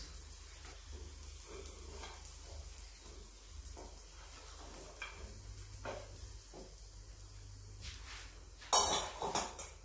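Paratha sizzling faintly on a hot tawa as ghee is spread over it with a steel spoon, with small scrapes and ticks of the spoon on the pan. Near the end comes a brief, much louder clatter of several sharp knocks.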